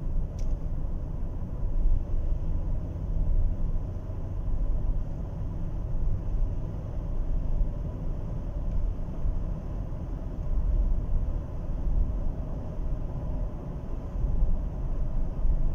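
Cabin road and engine rumble of a 2015 Chevrolet Tahoe accelerating from about 80 to 100 km/h at under 2,000 rpm. Its six-speed automatic is on freshly changed fluid and shifting normally.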